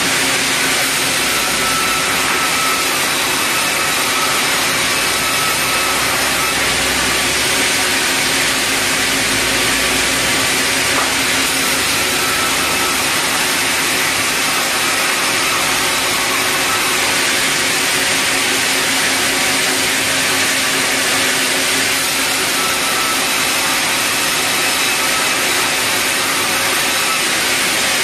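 Large sawmill band saw running with a loud, steady, even rush of noise while it resaws red meranti planks.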